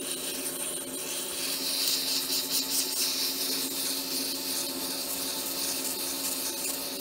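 150-grit sandpaper rubbing on a maple pen blank spinning on a wood lathe: a steady sanding hiss over the even hum of the lathe running a little above 700 RPM. The sanding hiss gets louder about a second and a half in as more pressure goes on.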